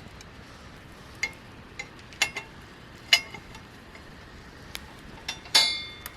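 Metal camp cookware clinking: a series of sharp knocks, several with a brief metallic ring, the loudest about five and a half seconds in ringing on for half a second, over a steady low background noise.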